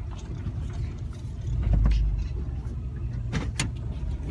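Car engine and road rumble heard from inside the cabin as it pulls in, swelling about halfway through, with a couple of sharp clicks near the end.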